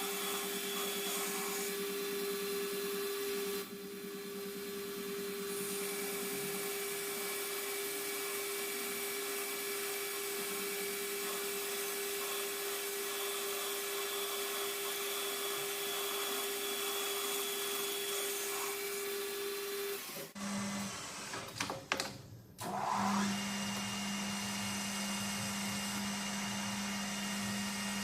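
Lathe running, a steady motor hum with a high hiss. About twenty seconds in the sound breaks off abruptly with a few clicks, then a steady hum at a lower pitch carries on.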